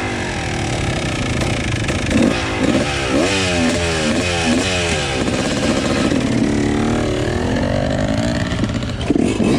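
Dirt bike engine being ridden on a gravel road, its pitch rising and falling several times in quick succession as the rider works the throttle, then running steadier in the second half.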